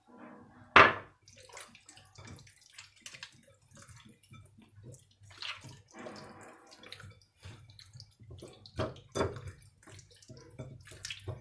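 Hands rubbing an oil-and-spice marinade over a raw whole chicken in a glass bowl: wet squelching and slapping of the oily skin as the bird is turned. A sharp knock about a second in, and two more close together near the end.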